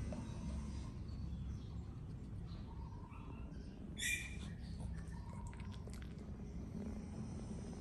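A puppy gives a single short, high-pitched squeak about four seconds in, over a low steady background hum.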